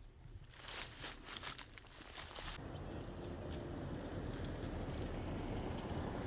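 A golden lion tamarin moving in a wire-mesh live trap, with a short run of rattling and a few short, high, rising chirps, one sharp click the loudest moment. From about two and a half seconds in, a car's steady noise as it rolls slowly past, with faint bird chirps above it.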